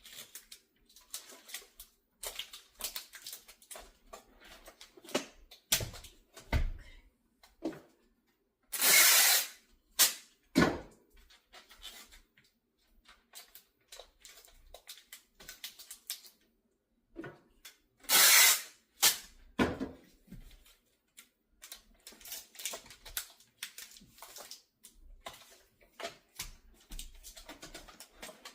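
Duct tape being pulled off the roll in two loud rips, each about a second long, with scattered light taps and rustles from handling the furnace filter and box fan between them.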